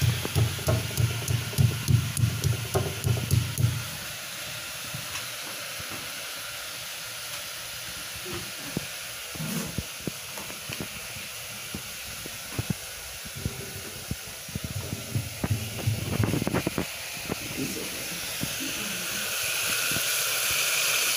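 Stone pestle pounding in a stone mortar, about three dull knocks a second for the first four seconds, then a steady hiss. Near the end food begins sizzling as it fries in a pressure cooker.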